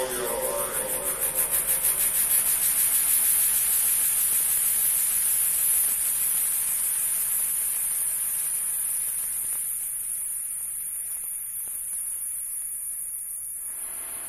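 A high hiss of noise left as a dub mix ends. It ripples quickly at first, then fades away slowly while the last musical tones die out.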